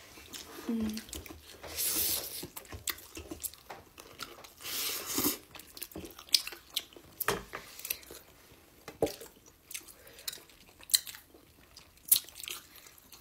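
Close-up eating sounds: wet chewing and lip smacks of people eating finger-millet dhido by hand, with many scattered sharp clicks and a couple of longer hissing rushes about two and five seconds in.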